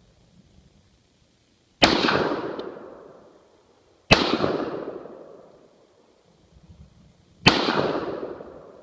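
Three single shots from an AK-pattern rifle in slow aimed fire, about two to three seconds apart, each a sharp crack followed by an echo that dies away over a second or more.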